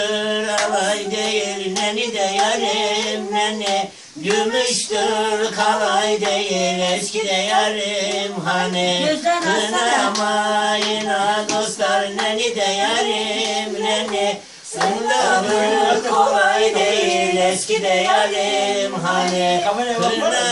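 A woman singing unaccompanied, long held notes bending up and down in phrases, with short breaks for breath about four and fourteen and a half seconds in.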